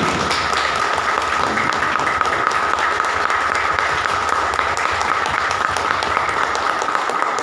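Audience applauding: many people clapping steadily, with a thin steady high tone underneath.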